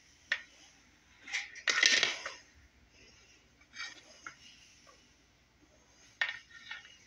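Conair ceramic-plate hair straightener in use: its plates click shut on sections of hair, and the hair rustles as the iron is drawn down through it. There are a few scattered clicks and short rustles, the loudest about two seconds in.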